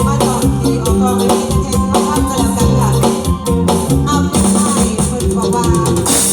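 Live band music with a steady beat and strong bass, and no singing words.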